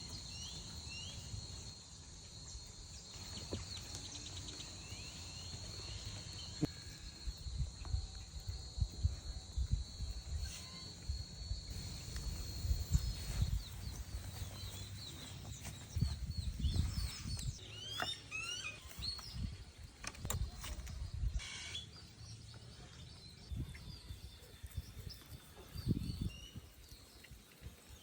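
Outdoor ambience: a steady high insect trill through the first half, with short rising bird chirps scattered throughout and gathering in the second half. Irregular low bumps and rumble run underneath.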